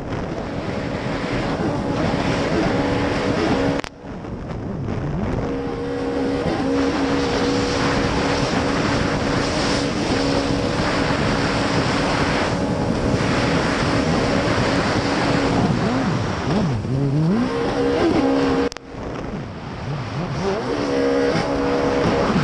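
Racing outboard engine of a tunnel-hull race boat running hard, with wind and water rushing past. Its pitch holds steady for a long stretch, then falls and climbs again a few times near the end as the throttle is eased and reopened; the sound drops out for a moment twice.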